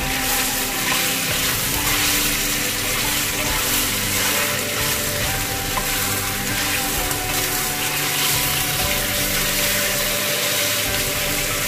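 Thin slices of marinated beef sizzling steadily in hot olive oil in a stainless steel wok, stirred with a wooden spatula that scrapes and turns them against the pan.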